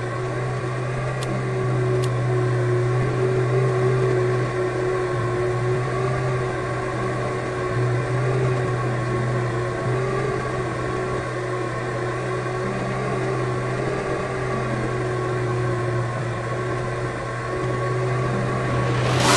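Electric fan motor running with a steady, even hum. Just before the end a loud rushing hiss starts.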